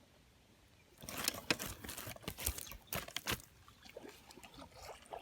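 Water splashing and sloshing in a run of irregular splashes, starting about a second in and easing off after about three seconds: a hooked pond fish thrashing at the surface as it is brought in.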